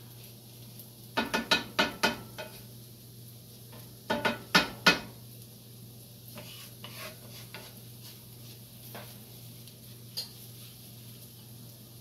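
Cooking utensil knocking and scraping against a pot while stirring okra and roux as it cooks down. The clanks come in two quick clusters, about a second in and about four seconds in, followed by a few lighter taps.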